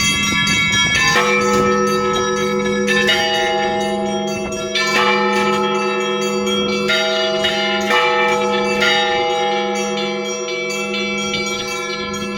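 Church bells ringing an Easter peal: several bells of different sizes struck again and again, their tones overlapping and ringing on over a deep steady hum, with fresh louder strikes every few seconds.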